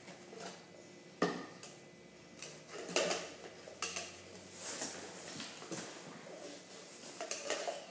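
Plastic cups and plastic toy utensils clacking and knocking together on a tabletop as they are handled and stacked, in scattered sharp clacks, the loudest about a second in and about three seconds in.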